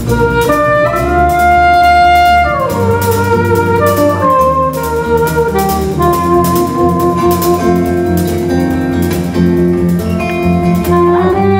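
Live band music: a soprano saxophone plays a melody of long held notes, one sliding down about two and a half seconds in, over electric guitar, bass guitar and drum kit.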